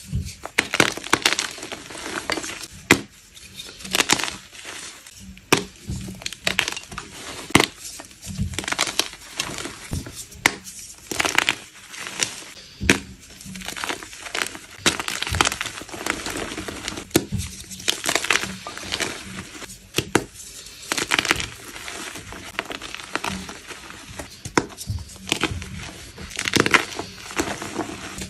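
Blocks of gym chalk being crushed and crumbled, a run of irregular crunches with a gritty crumble between them.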